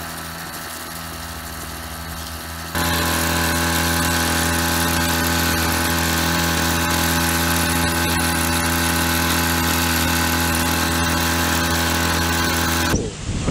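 Small engine of a power sprayer pump running steadily, feeding a spray lance used to drench the soil at the base of a pomegranate plant. The hum steps up louder and more even about three seconds in.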